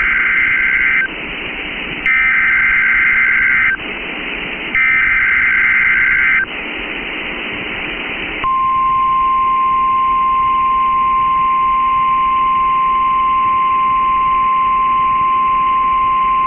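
EAS alert opening as received over NOAA Weather Radio: three short bursts of digital SAME header warble separated by radio hiss. After about two seconds of hiss, the steady single-pitch 1050 Hz warning alarm tone begins, signalling that a warning is about to be read.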